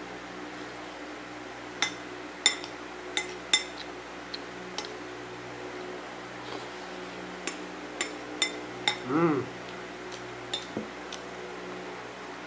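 Cutlery clinking against a plate and bowl while eating, about a dozen sharp clinks in two clusters, over the steady hum of an electric fan. About nine seconds in there is one short vocal sound from the eater.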